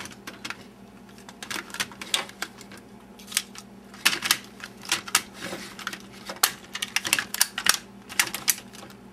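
Hard plastic parts of a Megazord toy being handled and snapped together: irregular clicks and clacks, some in quick runs, over a faint steady hum.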